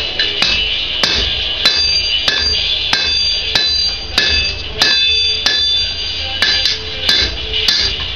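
Hand hammer striking red-hot steel on an anvil in a steady rhythm, about one blow every 0.6 seconds, each blow leaving the anvil ringing, over a steady low rumble.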